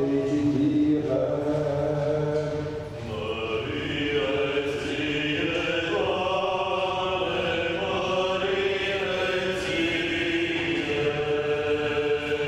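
A priest chanting the Gospel reading in Orthodox liturgical style: one man's voice holding long notes and gliding between pitches.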